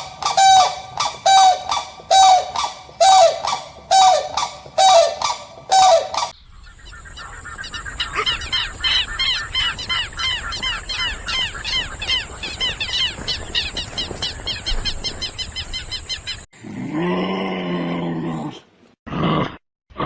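Animal calls in three parts. First, loud honking bird calls repeat about twice a second. From about six seconds in, a dense, rapid run of high chirping calls from many birds follows. Near the end comes one low, drawn-out animal call and then a short one.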